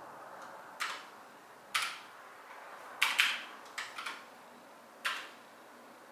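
Mechanical keyboard keys clacking: about seven separate sharp keystrokes at uneven intervals, two pairs close together around the middle, over a steady low room hiss.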